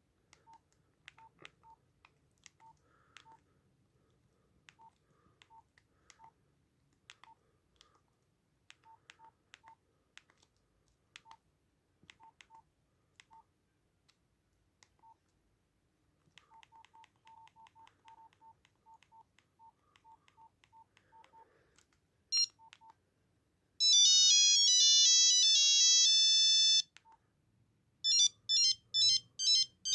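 Nokia 8265i mobile phone: keypad presses, each a click with a short beep, scattered irregularly for about twenty seconds and coming quicker near the end. Then a brief blip, a ringtone melody of fast stepping notes lasting about three seconds, and near the end a second ringtone of quick repeated notes.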